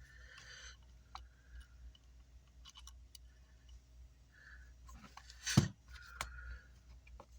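Faint clicks and light scraping of small parts and tools being handled on a workbench, with one sharper knock about five and a half seconds in, over a low steady hum.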